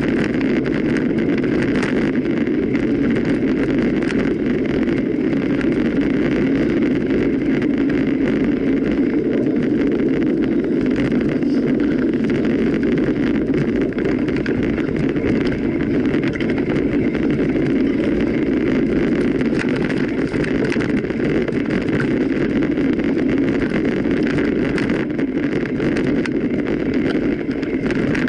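A mountain bike being ridden steadily: wind rushing over the microphone and tyres rolling on the trail, with a few faint knocks and rattles.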